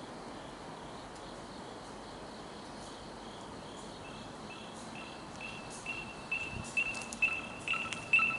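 Lime shared electric scooter's ring (locate) alarm: a high beep repeating about twice a second, starting about four seconds in and growing louder.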